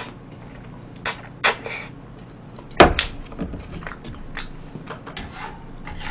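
Eating sounds: a few short mouth noises while eating tteokbokki from a bowl, then one sharp, loud knock about three seconds in as the bowl is set down on the table, followed by small clicks of chopsticks and tableware.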